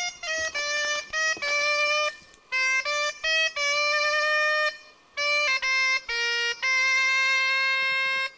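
Bombarde, the Breton double-reed oboe, playing a tune: runs of short notes and a few long held ones, with two brief breaks. It cuts off suddenly at the end.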